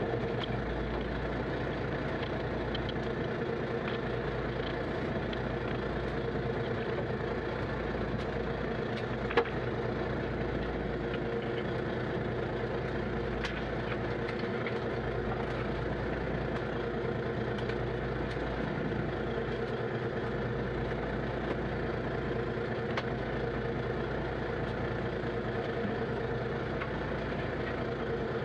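Small fishing boat's engine running steadily at low speed while the net hauler draws in a trammel net, with one sharp knock about nine seconds in.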